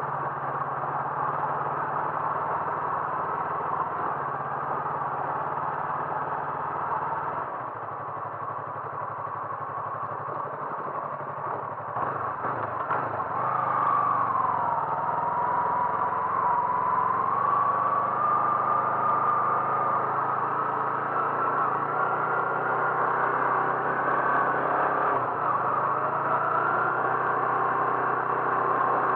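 A vehicle engine running steadily while travelling, louder from about thirteen seconds in, its pitch slowly shifting up and down.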